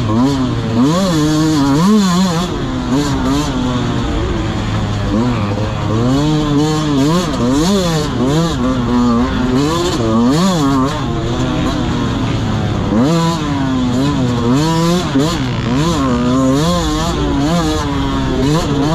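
Dirt bike engine under riding load, its pitch rising and falling over and over as the throttle is opened and closed.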